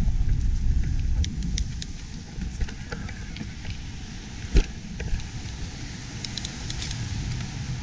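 Wind rumble on a chest-mounted action-camera microphone as an electric mountain bike rolls over a rough trail, with scattered clicks and rattles from tyres and bike. One sharp knock comes a little past halfway. The rumble is strongest for the first couple of seconds, then eases.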